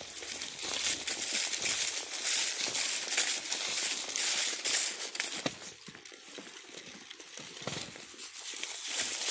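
Footsteps crunching and rustling through a thick layer of dry fallen leaves, an irregular run of crackling steps, softer for a couple of seconds past the middle.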